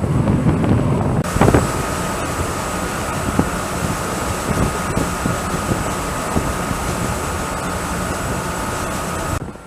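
Steady wind noise on the microphone over a mechanical drone with a constant high whine. The sound changes abruptly about a second in and again near the end.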